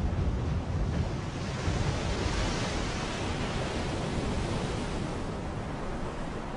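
Rough storm-driven sea: waves surging and breaking in the wind, with a deep rumble and a hiss that swells to its peak about two to three seconds in.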